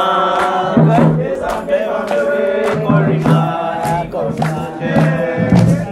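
A group of voices chanting a song together over music with steady percussive strikes: a devotional chant to Shango.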